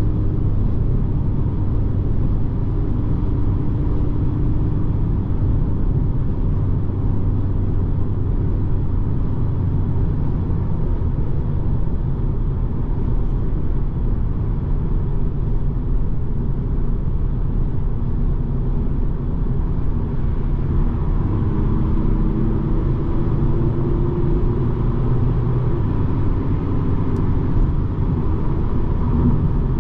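BMW 220d xDrive's four-cylinder diesel car cruising at motorway speed: a steady low engine and road rumble, with the engine note drifting slightly in pitch now and then.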